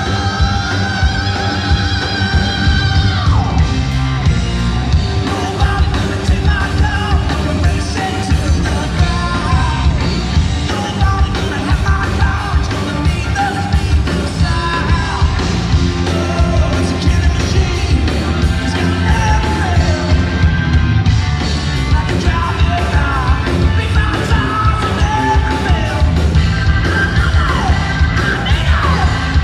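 Live rock band playing: electric guitars, bass and drums with a lead singer, loud and full through the venue's PA.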